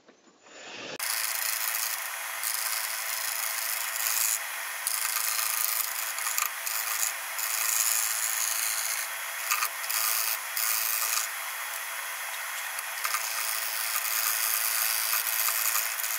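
Bowl gouge taking a shearing cut across spalted beech blanks spinning on a wood lathe: a steady hissing scrape of steel cutting wood. It starts abruptly about a second in and swells and eases a little as the tool moves across the face.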